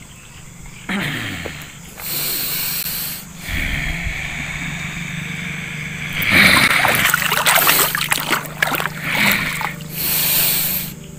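A worn-out man's heavy, snorting breaths, with water splashing from a hand in the lake around the middle.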